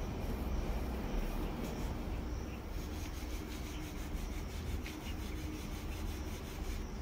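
Paint roller rolling white primer onto a plastered wall: a repeated rubbing of the roller nap against the rough surface, the strokes coming through more clearly in the second half.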